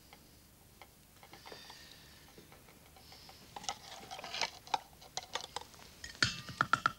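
A metal spoon clicking and scraping against a tin can while scooping beans in tomato sauce out onto a metal plate. The light clicks are sparse at first, come thicker from about halfway, and turn into ringing metal clinks near the end.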